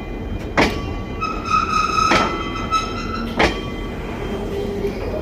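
Goods train wagon wheels running over fishplated rail joints: three sharp metallic knocks spaced about a second and a half apart, over a steady rumble. A high wheel squeal rings out in the middle.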